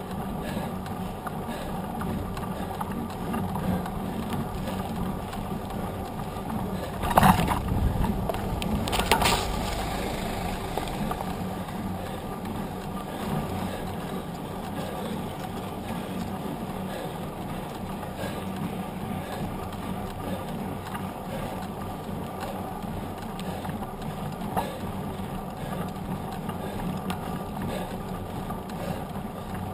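Mountain bike rolling along asphalt, heard from a camera mounted beside the front wheel: a steady hum of the knobby tyre on the road mixed with wind noise. Two louder knocks come about seven and nine seconds in.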